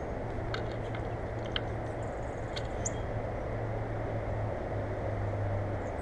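Steady low outdoor rumble and hiss with a low droning hum, and a few faint, short high chirps and ticks in the first three seconds, typical of small birds near a feeder.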